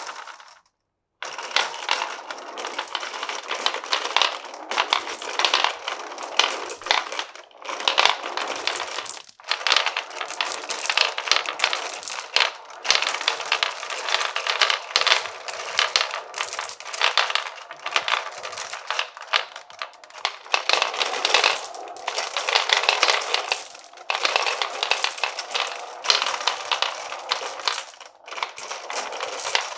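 Many glass marbles rolling and clattering down a wooden marble run, a dense stream of rapid clicks over a steady rolling rattle that starts about a second in.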